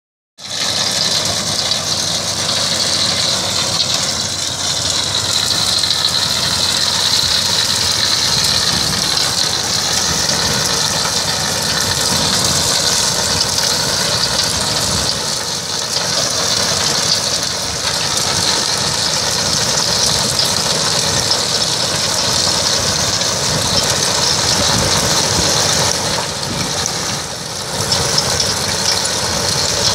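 Tractor engine running steadily while it pulls a tractor-mounted potato digger, with the digger's shaking elevator rattling as it sifts soil and potatoes. The level dips briefly near the end.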